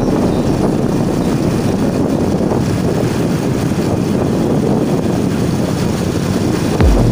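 Steady rushing road and wind noise from a moving vehicle, with a few low thumps near the end.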